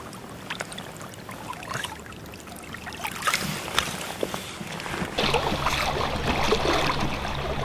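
Flowing creek water with light splashing as a trout is slipped back into the stream. The water sound gets louder and fuller about five seconds in.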